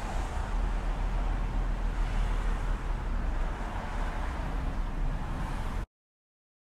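Steady outdoor background noise, a low rumble with a hiss over it, like street traffic. It cuts off abruptly to silence about six seconds in.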